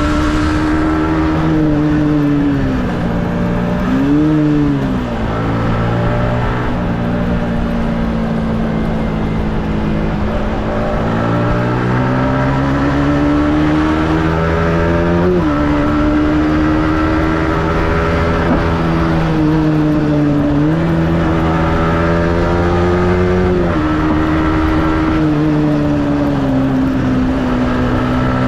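Yamaha MT-15's single-cylinder engine on a stock exhaust, heard from on the bike while riding. Its pitch rises and falls with the throttle, dropping sharply several times, as at gear changes or throttle closes.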